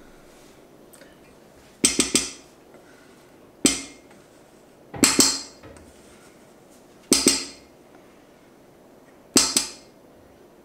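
A kitchen utensil knocking against the rim of a mixing bowl, a sharp single or double knock every second and a half to two seconds, as the whisked fool mixture is scraped off into the gooseberries.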